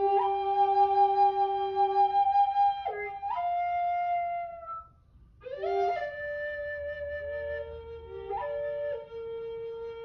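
Two Native American flutes playing together in long held notes, each moving in steps to new pitches independently of the other. The playing breaks off briefly about halfway through, then both come back in.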